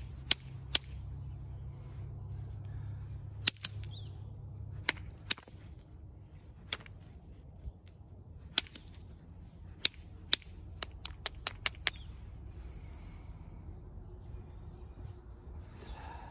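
Copper-tipped billet striking the edge of a hand-held jasper spall in flint-knapping percussion, knocking off flakes while bifacing: a series of sharp, unevenly spaced clicks, with a quick run of about six lighter taps a little past halfway.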